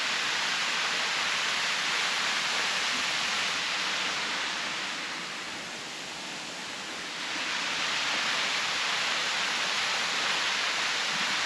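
Partly frozen waterfall splashing steadily into a pool, a constant rush of falling water that dips a little for a couple of seconds midway and then comes back.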